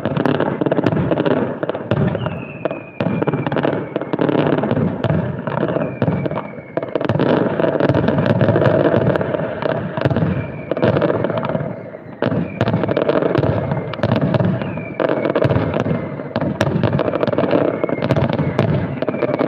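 Aerial fireworks display: a dense, continuous run of shell bursts and crackling, with a short falling whistle every few seconds.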